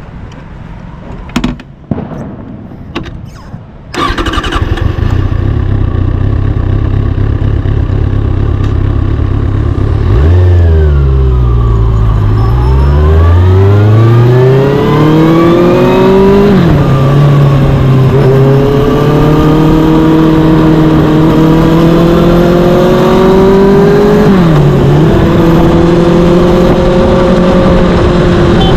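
Kawasaki Ninja ZX-6R's inline-four engine with its stock exhaust, starting about four seconds in after a few light clicks and running loudly. Its pitch drops and then climbs back up around a third of the way through, then holds steady with a couple of brief dips.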